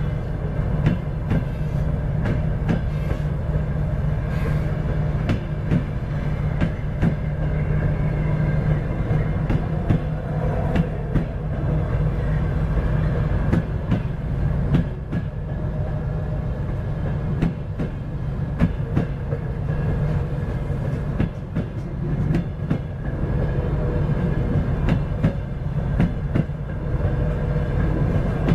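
M62 diesel locomotive's General Motors diesel engine running steadily as it hauls a passenger train away from the station, with irregular clicks and knocks of the wheels over rail joints and switches.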